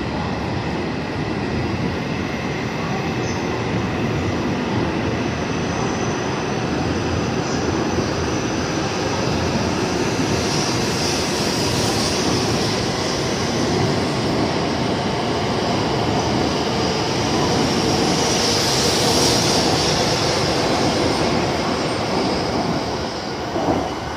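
JR East W7 series shinkansen pulling out and running past: a steady rush of wheels and motors that builds, with a high wheel squeal that swells twice, loudest about three-quarters of the way through, then the sound begins to fade near the end.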